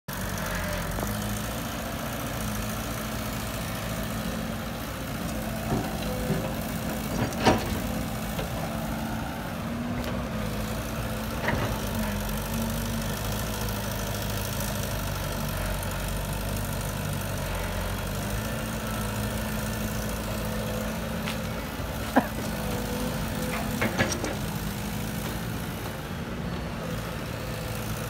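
Heavy diesel engine of a Caterpillar tracked excavator running steadily while it digs soil and loads a dump truck, its note shifting slightly as it works. A few sharp knocks and clunks stand out, the loudest about seven and a half seconds in.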